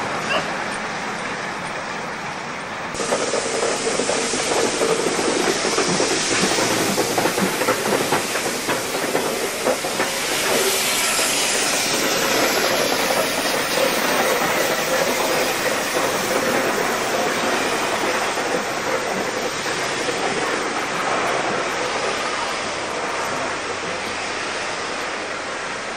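Steam locomotives, class 52 no. 52 3879 and class 65 no. 65 018, running past in steam: hissing steam and the clatter of wheels on the rails.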